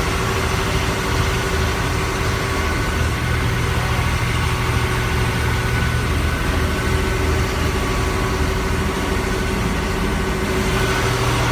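Small river boat's engine running steadily under way, a loud constant drone with a steady hum, loud enough to drown out a voice close by.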